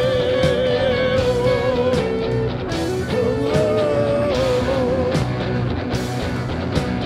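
Live rock band music: a long, wavering held note, likely an electric guitar lead, over bass guitar and drum hits.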